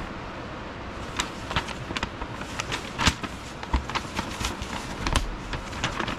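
A large paper instruction sheet being handled and folded: irregular crinkles and rustles begin about a second in, over a steady hiss, with a couple of dull bumps later on.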